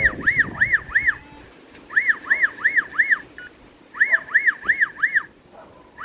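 BEBASIA keyless-entry smart deadbolt sounding its alarm: groups of four quick rising-and-falling electronic chirps, one group every two seconds. It is the lock's warning that the bolt met resistance and the lock could not lock itself.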